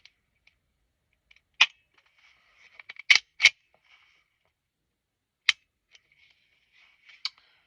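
Sharp metallic clicks of a SIG P365 X-Macro pistol being handled: five separate clicks, with a close pair about three seconds in.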